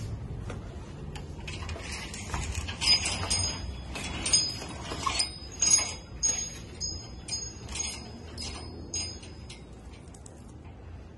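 A run of light metallic clinks, each with a short high ring, about two a second, starting about three seconds in and dying away near nine seconds, over a low background rumble.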